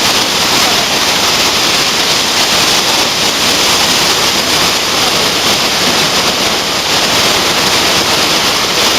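Torrential typhoon rain pouring down: a loud, steady hiss of water with no let-up.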